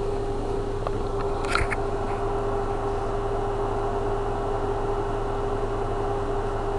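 Steady machine hum with a steady mid-pitched tone over a low hum and hiss, and a faint click and a short faint squeak in the first two seconds.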